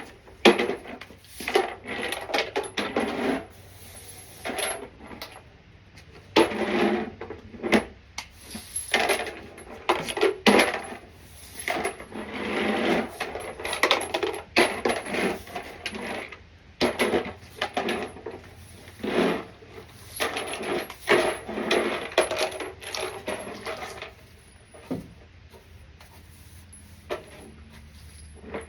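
Spent brass pistol cartridge casings clinking and clattering together in irregular runs as they are picked up by hand and dropped in with the others.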